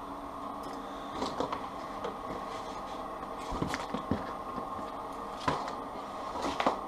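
Loose electrical wires rustling and clicking as they are picked through and handled, over a steady background hum. There are a few sharper clicks in the middle and near the end.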